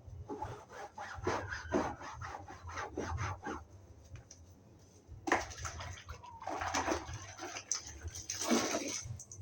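Damp sponge scrubbing sofa upholstery with soapy water: quick back-and-forth rubbing strokes, about three a second, then after a short pause a few longer, louder swishes.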